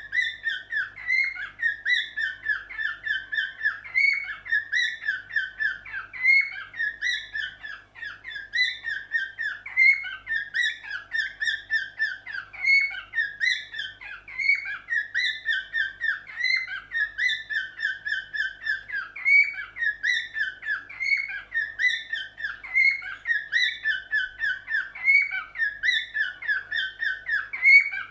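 Cockatiel singing: a continuous warbling song of short whistled notes, the same phrase repeated over and over, each phrase topped by a higher note.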